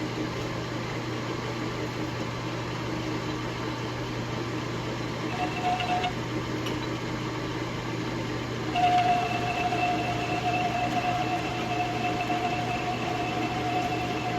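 Metal lathe running, turning a stainless steel shaft on a light spring cut, with a steady mechanical hum. A steady high whine comes in briefly about five seconds in and again from about nine seconds on.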